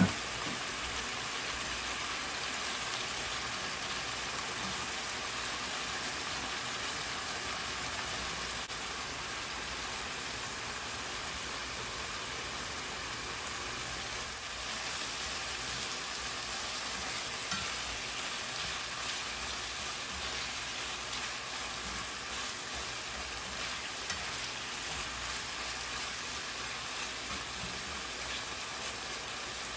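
Beef, onion, tomato and bell pepper frying in a nonstick pan: a steady sizzle, with a few light knocks and a slotted spatula stirring near the end.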